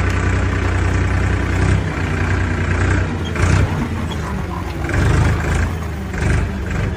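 An engine-like drone: a steady low hum for about two seconds, then uneven louder surges, like an engine revving.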